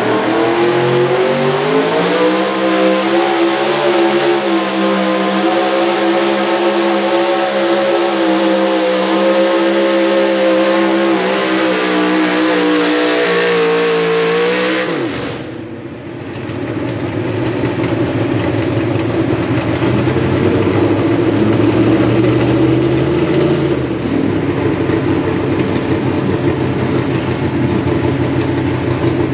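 A pulling truck's engine at full throttle under load: the pitch climbs over the first couple of seconds and then holds high. About halfway through the throttle is cut and the pitch drops suddenly, and the engine then runs at a lower, rougher speed.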